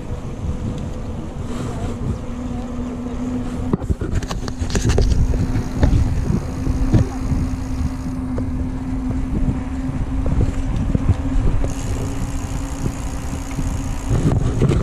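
Wind rushing over the microphone and tyre rumble from a mountain bike riding fast on a paved path. A steady hum runs through most of it, with a few knocks and rattles between about four and seven seconds in.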